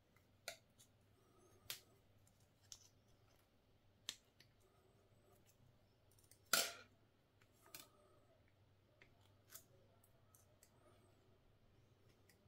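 Small pliers clicking on thin wire as it is bent and twisted into a loop: about seven short, sharp clicks spaced a second or two apart, the loudest a little past the middle.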